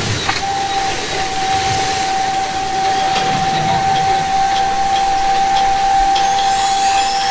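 Water-show fountain jets spraying with a steady hiss, over which a single high tone is held from just after the start, with faint regular ticks and rising whistle-like sweeps near the end.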